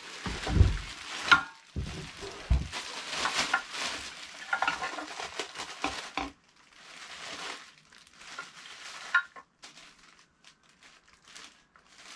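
Clear plastic bag rustling and crinkling as it is pulled open around a boxed-new air compressor, with two low knocks in the first few seconds as the compressor is stood upright on the wooden bench.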